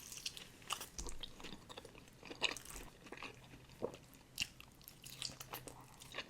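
Close-miked eating: chewing and biting with irregular short, sharp mouth clicks.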